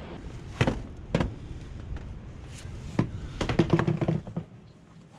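A few separate sharp knocks and clatters, with a busier run of them around three and a half to four seconds in that carries a brief short tone.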